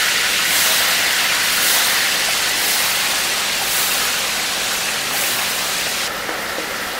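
Whole spices frying in hot oil and ghee in a large pot: a loud, dense sizzle that eases slightly near the end.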